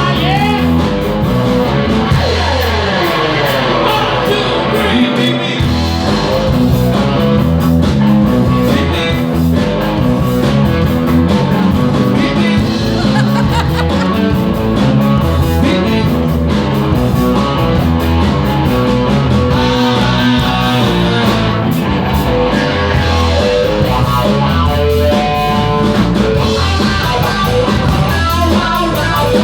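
A live band playing a rock-and-roll number, led by guitar over a bass line that steps from note to note.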